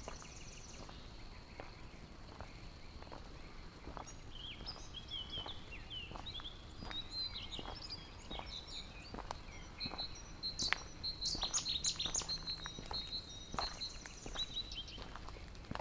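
Footsteps on a gravel track at a steady walking pace, with small birds chirping and twittering, most busily in the second half.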